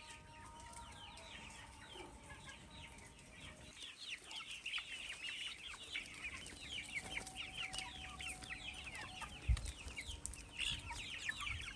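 Chicks peeping: many short, high, falling cheeps overlapping one another, growing busier about four seconds in, with a single low thump about two-thirds of the way through.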